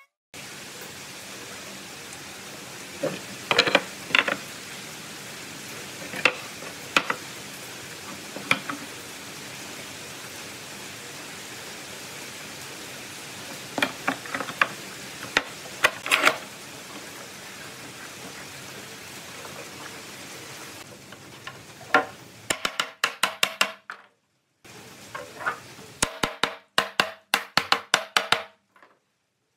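Steady background hiss with scattered knocks of pine boards being handled on a workbench. Near the end comes a quick run of sharp metallic clicks as pipe clamps are slid along their pipes and tightened.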